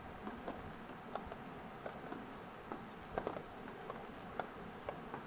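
Two small dogs eating blueberries off a wooden board: faint, irregular small clicks and taps of mouths on the berries and wood, over a low steady background hiss.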